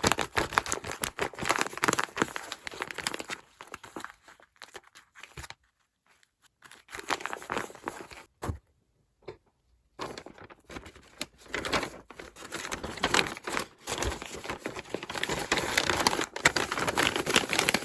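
Paper crinkling and crumpling as a handmade paper squishy blind bag is handled, with two short pauses, about six and nine seconds in.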